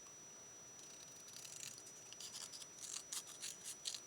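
Scissors snipping cardstock in a series of short, faint, crisp cuts starting about a second in.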